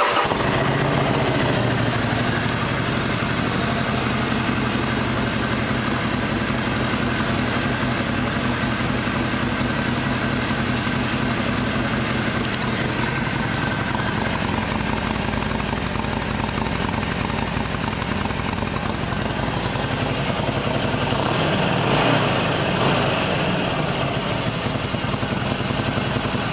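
2017 Harley-Davidson Sportster Forty-Eight's air-cooled 1200 cc V-twin idling steadily, freshly started. It gets a little louder for a moment about 22 seconds in.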